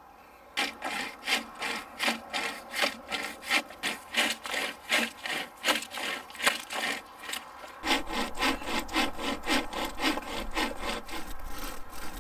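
Manual pocket chain saw (a length of saw chain between two handles) pulled back and forth through a fallen tree trunk: a regular rasping stroke about three times a second, coming faster and closer together from about eight seconds in.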